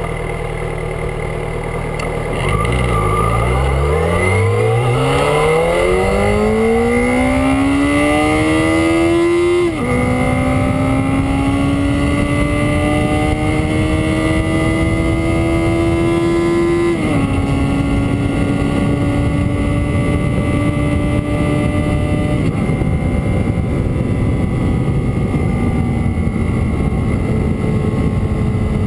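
Yamaha XJ6 600 cc inline-four, restricted to 34 hp, idling and then accelerating at full throttle from a standstill. The engine note climbs steeply through first gear and drops at an upshift about ten seconds in. It climbs more slowly and drops again at a second upshift around seventeen seconds, then settles after a smaller drop near twenty-two seconds, with constant wind rush on the bike-mounted camera microphone.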